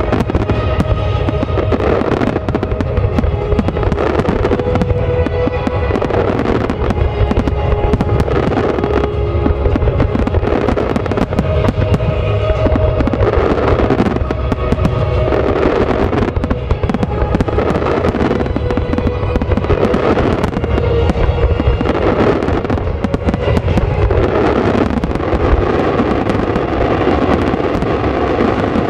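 A fireworks display's closing barrage: aerial shells bursting in a rapid, unbroken run of booms and crackles, with music playing alongside.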